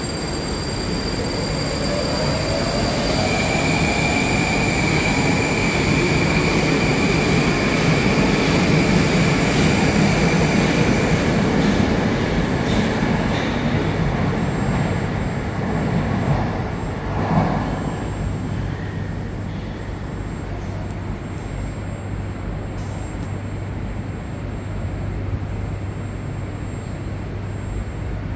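Moscow Metro train running on the station track: a whine from its traction motors rises in pitch as it gathers speed, and its rumble swells and then fades over about twenty seconds. A short sharp noise comes about two-thirds of the way in, and after that a steady low hum stays.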